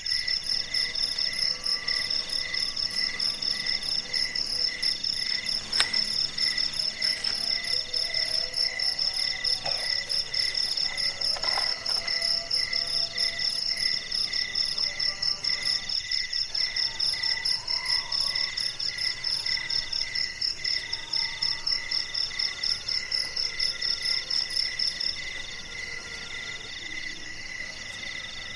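Several insects, crickets among them, chirping in steady, overlapping rhythms: a loud, fast, high-pitched pulsing trill, a second song in longer pulses about once a second, and a lower, evenly repeated chirp. The loudest, highest trill stops about 25 seconds in.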